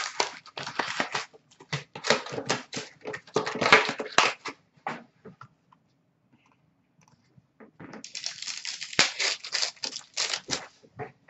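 Hockey card packs being torn open and their wrappers crinkled as the cards are pulled out: quick ripping and rustling in two spells, with a pause of about two seconds in the middle.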